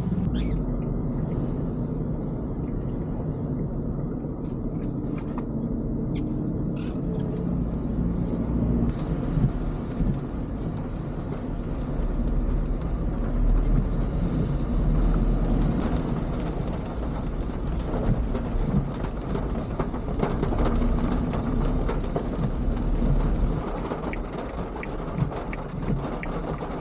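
Suzuki Jimny JB74 driving on a road: steady engine and road rumble, with a few sharp clicks in the first several seconds and more tyre hiss later.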